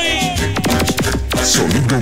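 Dance music from a sonidero sound system with an electronic DJ effect laid over it: a falling, echoing tail at the start, then a rapid run of sharp hits around the middle.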